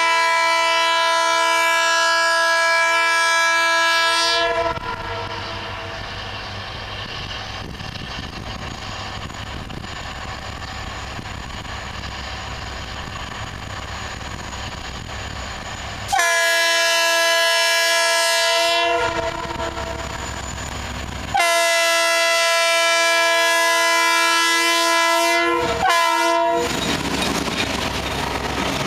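TCDD DE 33000 diesel-electric locomotive sounding its multi-tone air horn in three long blasts, the last followed by a brief toot. Between the blasts the diesel engine can be heard running as the train departs.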